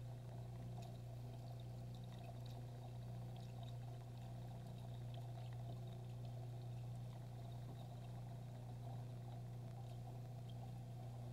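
Aquarium pump running, a faint steady low hum with water trickling and small scattered ticks.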